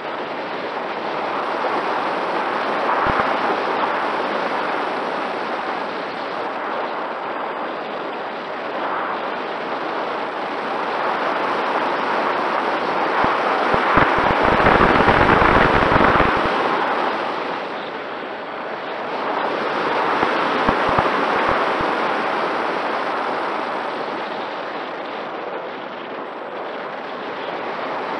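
Wind rushing over the microphone of a camera mounted on a flying Mini Talon RC plane. It swells and fades several times and is strongest about halfway through, where gusts buffet the mic with a low rumble. A faint steady whine from the plane's electric motor and propeller runs underneath.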